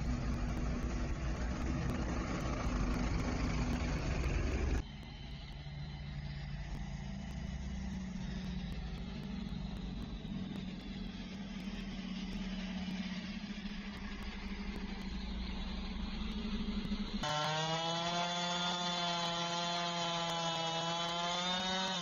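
Fire engines running on the road, a steady engine drone. From about four seconds before the end, a chainsaw runs at high revs with its pitch wavering slightly, cutting pine trees.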